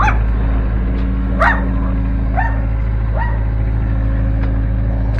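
A dog barking four times in short, sharp barks, the second the loudest, over the steady drone of a CAT 308C excavator's diesel engine running.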